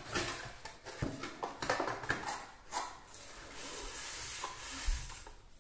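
Cardboard box and polystyrene foam packing blocks rubbing and scraping against each other as a boxed car stereo is pulled out, with a knock about a second in and a dull thump near the end.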